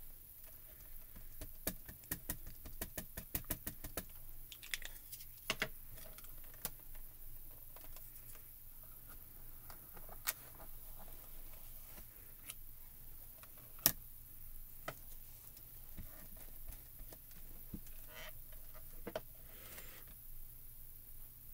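Light plastic clicks and taps from card-stamping tools being handled: a quick run of taps about two seconds in as a mini ink cube is dabbed onto a clear stamp, then scattered handling clicks on the stamp positioner, one sharper than the rest near the middle.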